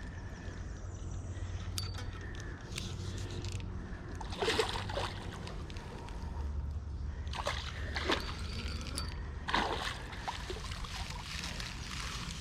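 Creek water splashing in four short bursts as a hooked pike thrashes at the surface, over a steady low rumble.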